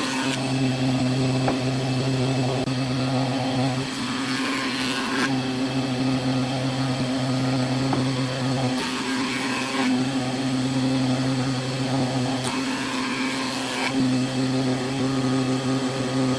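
Wood lathe running with a steady motor hum, with a cutting tool scraping the spinning wood in several bursts of a second or two each.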